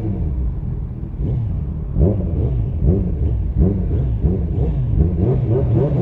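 Motorcycle engine revved in short repeated throttle blips, about two a second, over a steady low rumble, with the bike standing still.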